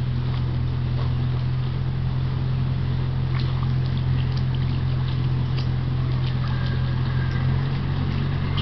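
A steady low motor hum with a few faint, scattered clicks above it.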